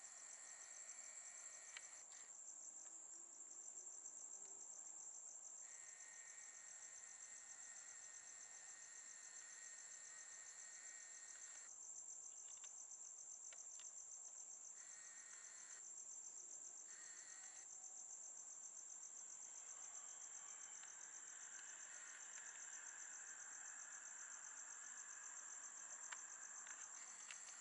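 Faint crickets chirping, a steady high-pitched trill that goes on without a break.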